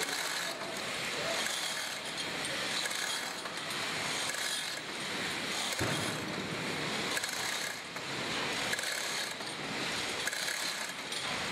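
Manual chain hoist (chain block) being hand-pulled: the chain rattles and the ratchet clicks steadily as it lifts a load.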